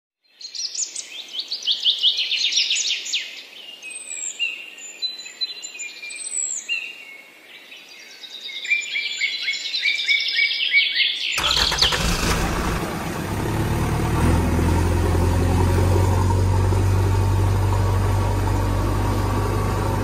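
Small birds chirping and singing in quick repeated phrases for about eleven seconds, then an abrupt switch to a motor vehicle engine sound that starts up and settles into a steady low drone, like a tractor engine running.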